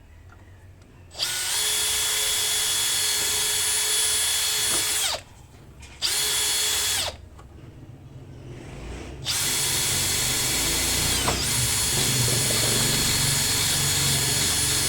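Power drill running in four bursts, each a steady high whine that winds down as it stops.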